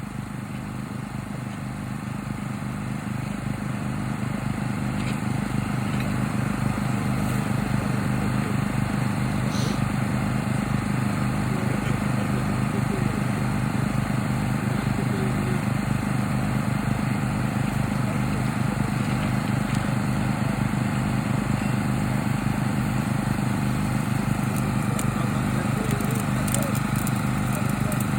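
A small engine running steadily with a regular low throb, growing louder over the first few seconds and then holding level.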